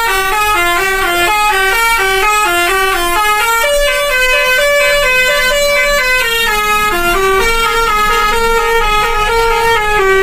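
Indonesian bus 'telolet' musical air horn playing a continuous winding tune of quick stepped notes, several a second. The melody climbs higher partway through and then drops back down.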